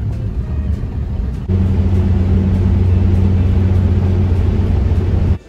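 Engine and road noise of a moving vehicle heard from inside the cabin: a steady low drone that steps up louder about a second and a half in.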